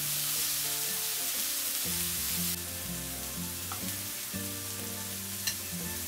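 Slices of beef searing in a hot nonstick frying pan: a steady sizzle that drops a little after about two and a half seconds, over light background music.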